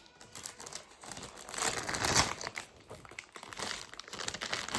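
Packaging being handled and unwrapped, crinkling and rustling in an irregular crackle, loudest about two seconds in.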